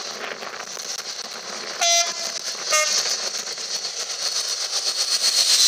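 Class 56 diesel locomotive sounding two short blasts on its two-tone horn about two seconds in, a higher note then a lower one, then passing close with its Ruston-Paxman V16 engine and the rumble of loaded timber wagons growing louder.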